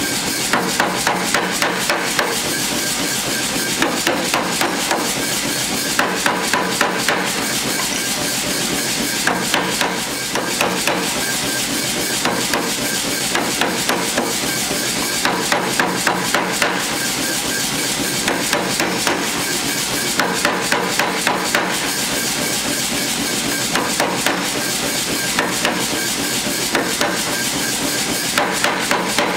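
Hand hammer striking hot high-carbon steel set on a square die block, forging a knife blade. The blows come in quick runs of three to five, with short pauses between runs, over a steady hiss.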